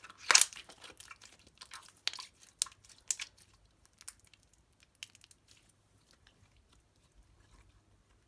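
Crisp crunching and crackling of slime materials being worked: a loud cluster of crunches right at the start, then scattered crackles that grow fainter and sparser over the second half.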